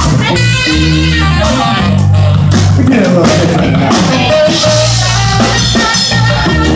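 Band music with electric guitar over held bass notes and a drum kit, without vocals.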